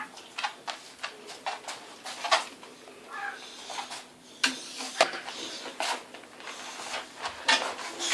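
Pets playing: a run of short scrabbling and tapping sounds, with a couple of brief pitched animal calls about three to four seconds in, as one pet invites the other to play.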